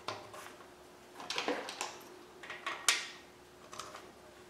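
New steel hydraulic lifters clinking against the cast-iron lifter bores of a small-block Chevy 350 as they are set in by hand: a handful of short metallic clicks and knocks, the loudest about three seconds in.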